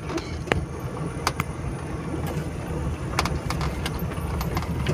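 A vehicle's steady low rumble, heard from inside the cabin as it drives over a rough dirt track, with a few sharp knocks from the bumps.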